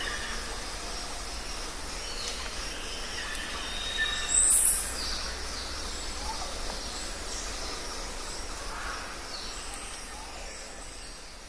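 Forest ambience: a steady background rush with birds calling now and then in short high chirps and whistles. One loud, very high call stands out about four and a half seconds in.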